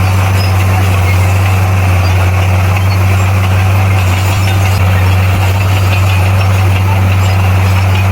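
Heavy earthmoving machine's diesel engine running steadily with a deep, even hum that does not rise or fall.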